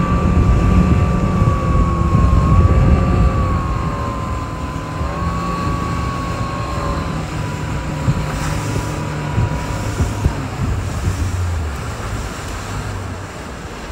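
Vehicle running: a steady low rumble with a thin high whine that wavers slightly and fades out about ten seconds in, the rumble easing near the end.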